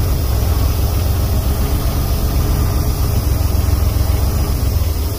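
Semi truck's diesel engine running steadily with a deep, even rumble, heard from inside the cab.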